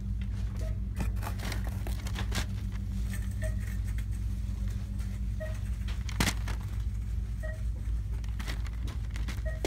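Steady low hum of store ambience, with clicks and crinkles from a cardboard-and-cellophane candy box being picked up and handled, in a cluster a second or two in and one louder click just after six seconds. Faint short beeps repeat about every two seconds.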